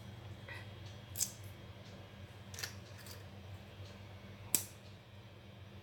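Crisp fried corn tortilla chips snapping as they are broken between the fingers: several short, sharp cracks a second or so apart, the loudest near the end. A low steady hum runs underneath.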